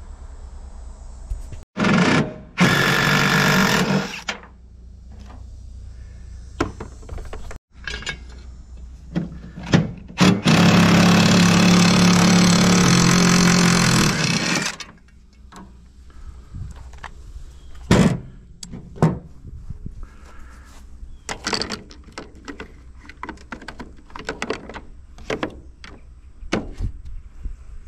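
A power tool runs in two bursts of a few seconds each, one about two seconds in and a longer one about ten seconds in, as an air-conditioning unit is taken apart. Scattered knocks and clanks of metal parts being handled fill the gaps.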